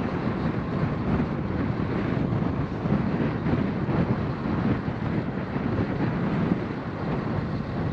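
Strong wind blowing across the microphone: a steady low rush that rises and falls a little with the gusts.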